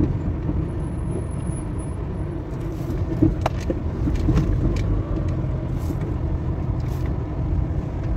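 Car driving slowly along a street, heard from inside the cabin: a steady low engine and road rumble, with a few light clicks.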